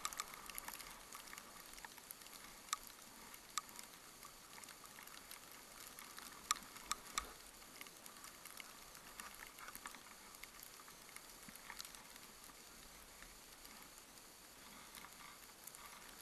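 Faint hiss of skis sliding over snow, with a few sharp clicks scattered through it.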